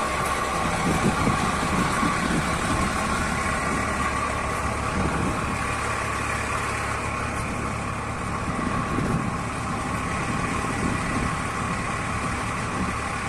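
Steady car engine and road noise, a continuous even drone with no sharp events.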